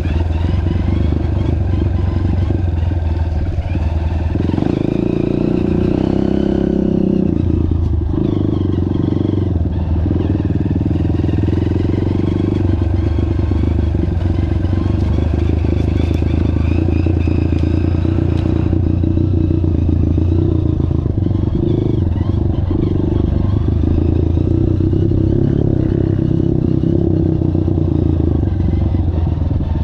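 Trail motorcycle engine running steadily under way, its pitch shifting for a few seconds about five seconds in, with rumble and rattle of riding over rough ground.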